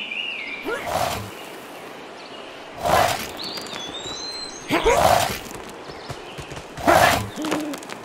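Two cartoon lumberjacks grunting with effort as they haul a log and a handsaw, four heaves about two seconds apart, with birds chirping in the forest between them.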